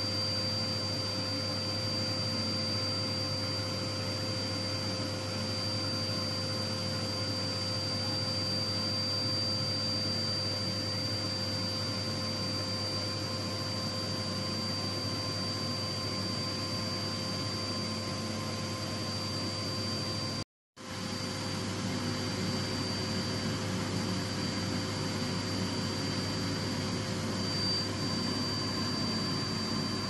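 2000 W snow machine running steadily, its blower giving a rushing air noise with a low hum and a high, steady whine. The sound cuts out for a split second about two-thirds of the way through, then carries on.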